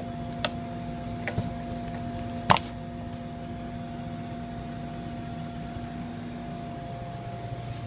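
A few light clicks and taps from cardboard boxes of savoury being handled, the sharpest about two and a half seconds in, over a steady mechanical hum with a held tone.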